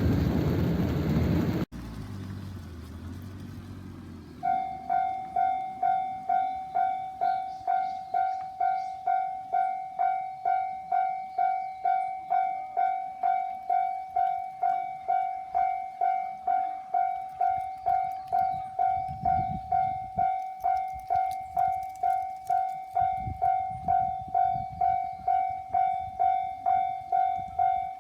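A train passes loudly and is cut off suddenly after about two seconds. A couple of seconds later a railway level-crossing warning bell starts, ringing evenly at just under two strikes a second, with low rumbles under it near the end.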